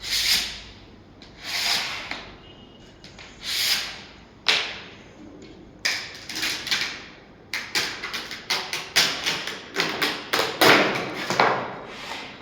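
Sunmica laminate work on furniture: three long rubbing or scraping strokes, then sharp knocks that quicken into a rapid run of taps and thumps in the second half.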